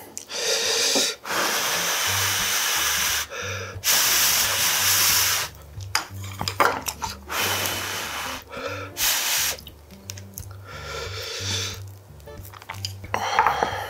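Eating sounds close to the microphone: several loud hissing breaths of a second or two each, with short crisp chewing noises in between, over soft background music.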